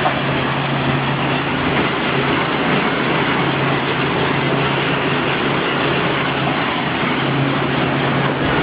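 Sand washing machine running: a steady motor hum under a dense, even rushing noise that does not change.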